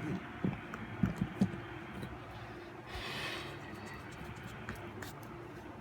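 A few soft knocks and bumps in the first second and a half, then a brief scraping rustle about three seconds in, over a faint steady hum: handling noise as the camera is moved to a new angle.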